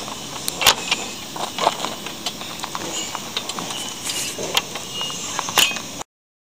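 Steel Snapper clamshell target frame being reset by hand: a run of sharp metal clicks and clinks as the lever is worked and the target arms are folded flat and latched. It cuts off suddenly about six seconds in.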